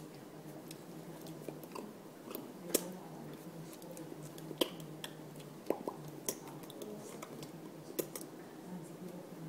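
Soft, scattered clicks and small mouth smacks from a person signing close to the microphone, hands tapping and brushing and lips moving without voice, over a steady low hum. The sharpest clicks come just under three seconds in and just under five seconds in.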